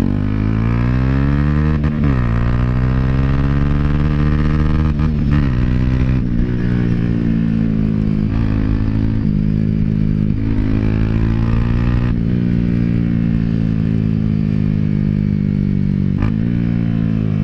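Dafra Next 250's single-cylinder engine through a Jeskap GP Carbon aftermarket exhaust, loud and steady as the bike is ridden. Its pitch climbs under throttle and drops back at gear changes several times.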